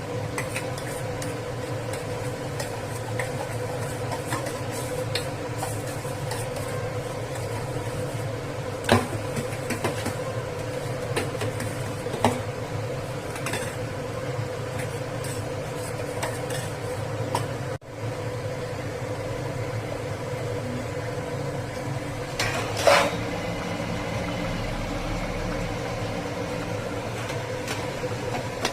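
A cooking utensil clinking and scraping against a pot of curry being stirred, with a few sharper knocks (the loudest near the end) over a steady background hum.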